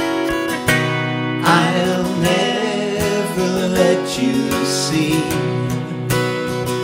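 Strummed acoustic guitar and an electric guitar playing a slow ballad, with two men's voices coming in to sing together about a second and a half in.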